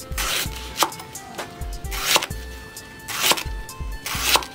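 A forged kitchen axe blade chopping through a banana stem onto a wooden board: a series of crisp chops, roughly one a second, over background music.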